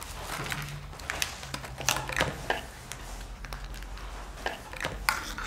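A table knife clicking, tapping and scraping against a foil tray and plate: a scatter of short, sharp kitchen clatter.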